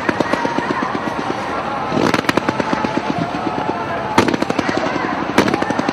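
Fireworks going off in a dense, rapid run of crackling bangs, with louder clusters of bursts about two seconds in, about four seconds in and again near the end.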